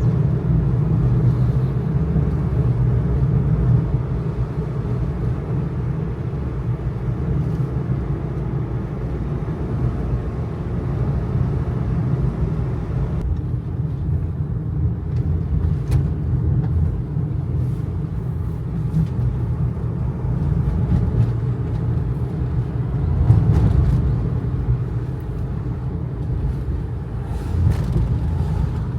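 Kei truck's small 660 cc engine running steadily under way, with a low road and tyre rumble, swelling briefly a little after 23 s, and a few short clicks.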